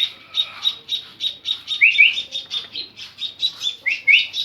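Emprit sawah, a small munia, chirping in a steady run of short high notes, about four a second, with a pair of quick rising calls twice.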